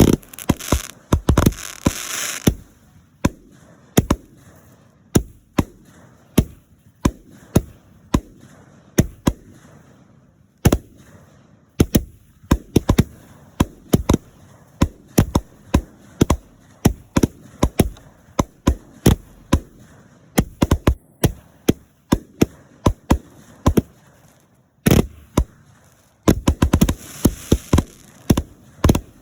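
Fireworks going off: a long irregular series of sharp bangs, sometimes several in quick succession, with bursts of crackling hiss near the start and near the end.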